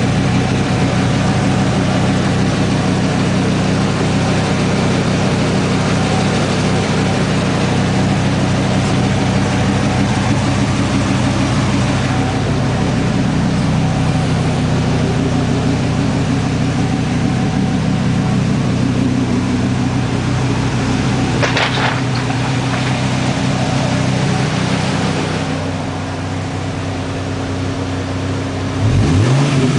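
Dodge Ram SRT-10's 8.3-litre V10 idling steadily through a Magnaflow cat-back exhaust. Near the end the pitch rises sharply into a rev.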